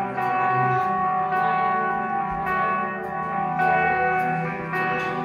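Live rock band playing a slow song: held, ringing electric guitar chords over bass, with drum cymbal hits about every half second.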